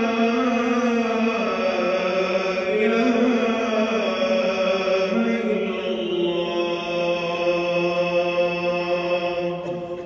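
A solo voice chanting in long held notes that glide slowly up and down in pitch, with no beat.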